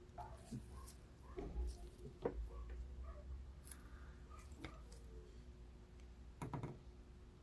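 Faint scattered clicks and taps of small tools being handled at an electronics repair bench, over a low steady hum.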